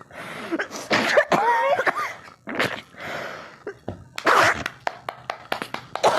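A woman sneezing and coughing several times in sharp bursts, with short voice sounds between them, set off by a stick tickling inside her nostrils.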